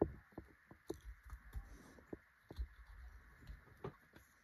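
X-Acto hobby knife shaving the wood of a drawing pencil to sharpen it: faint, irregular small scrapes and ticks, several a second, as the blade takes off short slivers.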